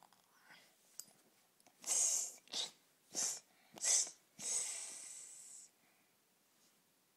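A person's breathy mouth noises: four short hissing bursts spaced well under a second apart, then a longer hiss that fades away.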